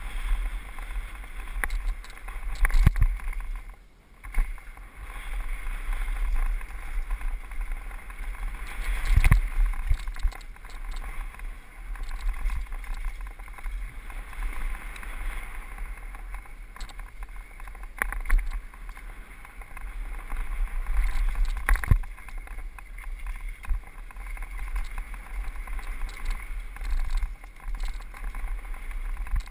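Mountain bike descending a dirt downhill trail, recorded on a rider-mounted action camera: wind buffeting the microphone over the noise of tyres rolling on dirt and the bike rattling, with a few sharp knocks as it hits bumps.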